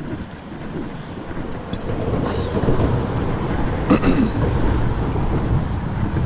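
Low rumbling outdoor background noise that grows a little louder about two seconds in, with one sharp click about four seconds in.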